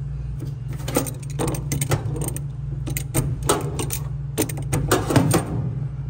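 Irregular metallic clicks and clanks of hand tools as a vise grip is used to work the worn motor pulley off a Whirlpool Duet dryer's motor shaft, over a steady low hum.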